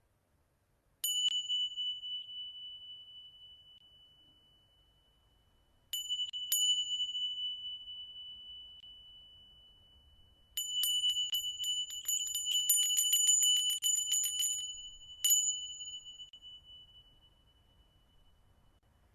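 A small high-pitched bell struck once, then twice, then rung in a quick run of strikes for about four seconds, with one last strike. Each time it rings on and slowly fades. It marks the close of a meditation practice.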